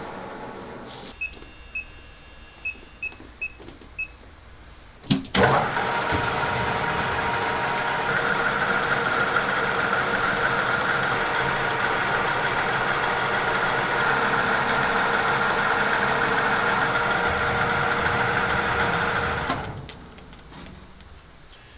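Metal lathe cutting a clear plastic turntable platter blank: after a few short high pings, a sharp knock about five seconds in gives way to a steady cutting noise with a fixed whine, which drops away near the end.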